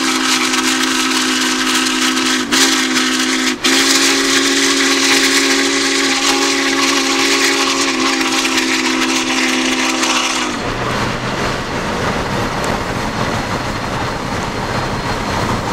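Union Pacific 844's steam whistle blowing one long chord of several notes, broken twice for an instant near the start, cutting off about ten seconds in. After that there is only a steady rushing noise.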